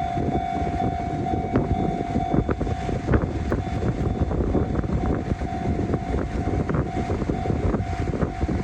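Japanese level-crossing warning bell ringing with a steady, repeating electronic clang while a train passes over the crossing, its rumble and wheel clatter heard throughout.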